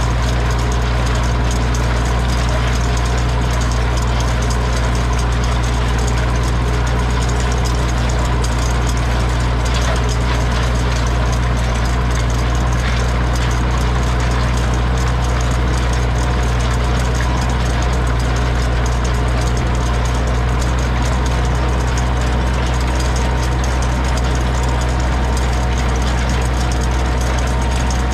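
Zetor 6245 tractor's four-cylinder diesel engine running steadily at an even speed, with a strong low hum that hardly changes.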